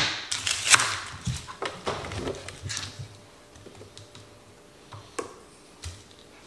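Kitchen knife chopping an onion on a cutting board: a run of quick knife strokes over the first three seconds, then two lighter knocks about five and six seconds in.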